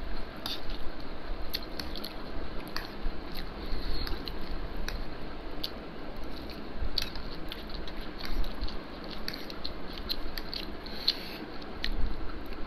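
Two people eating spicy ramen noodles with forks: chewing and slurping, with many irregular little clicks and scrapes of the forks on the plates.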